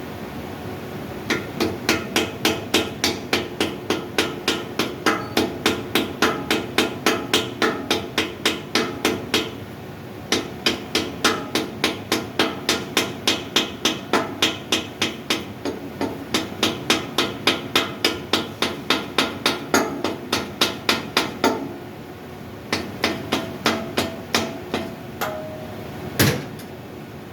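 Hammer blows struck in quick succession, about four or five a second, in long runs with short breaks. A single heavier blow comes near the end.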